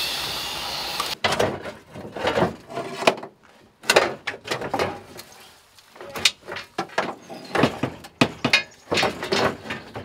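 A rusty steel panel and seat parts being dragged and pulled out of a stripped Mercedes E-class floor pan: a run of irregular metal scrapes, clunks and knocks. A steady hiss stops about a second in.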